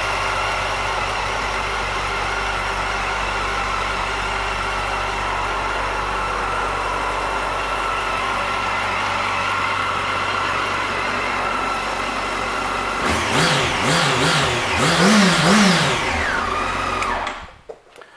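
2013 Yamaha FZ8's inline-four engine idling steadily, then revved in about four short blips of the throttle about thirteen seconds in, and switched off near the end.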